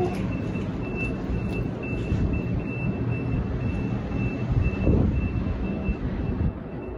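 Repeated high electronic beeping from a Siemens S200 CTrain light-rail car at the platform, about two beeps a second, over the low rumble of the stopped train. A louder thump comes about five seconds in.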